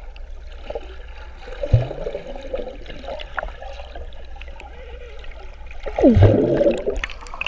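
Pool water heard from underwater: a muffled low rumble with gurgling and bubbling, louder in short bursts about two seconds in and again around six seconds.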